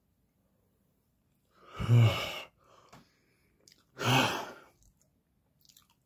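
A man's voice letting out two loud, breathy sighs, about two seconds apart, with his mouth full of ice cream sandwich.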